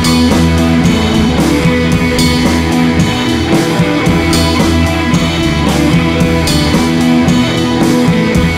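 Background music with guitar and a steady drum beat.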